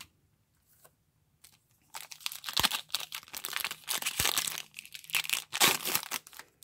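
Topps baseball card pack's foil wrapper crinkling and tearing as it is pulled open, starting about two seconds in.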